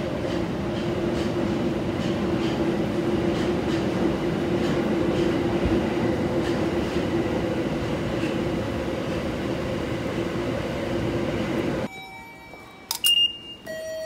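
Inside a Tokyo Metro Marunouchi Line subway car running between stations: a steady loud rumble with a held hum and faint regular clicking from the wheels. About twelve seconds in it cuts to quieter station ambience with a short, high electronic beep.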